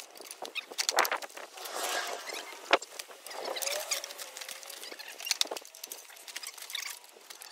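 Manual pipe bender working a steel pipe: irregular metal clicks and clunks with scraping and creaking as the pipe is put through a series of small bends. The two sharpest knocks come about one second and nearly three seconds in.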